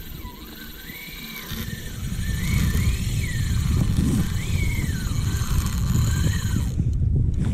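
Wind buffeting the microphone on open water, a low rumble that grows louder about two seconds in. Over it, a faint whine rises and falls several times.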